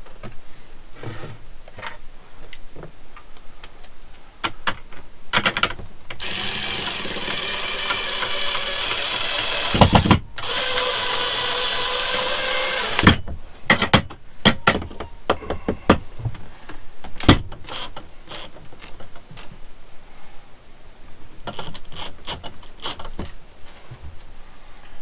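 Cordless drill driving screws into a wooden plank wall: the motor runs steadily for about four seconds, stops with a knock, then runs again for about two and a half seconds. Scattered clicks and taps of handling come before and after.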